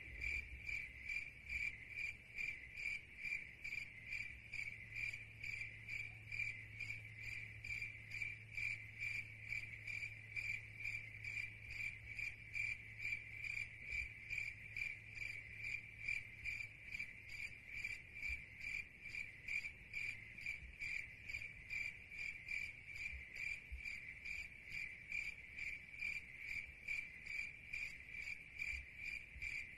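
Cricket chirping steadily, one high pitch pulsing in a regular rhythm without a break.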